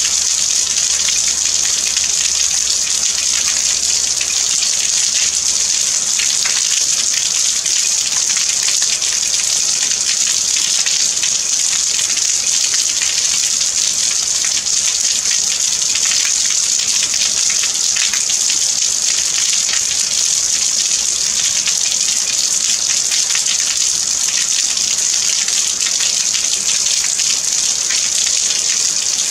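Steady rain falling, a dense, even hiss of countless drops.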